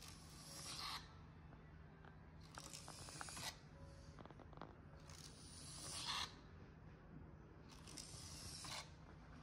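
Small geared motor of a 3D-printed prosthetic little finger whirring in four short runs, about every two and a half seconds. Each run grows louder as the finger presses down under load, then cuts off sharply.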